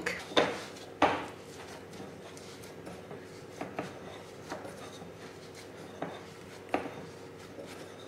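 Dough being kneaded by hand in a glass mixing bowl: soft rubbing, with several sharp knocks and clinks as the bowl and hands move, the loudest about a second in.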